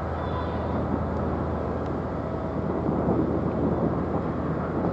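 Steady low engine rumble of a passenger ship under way, coming in head-on.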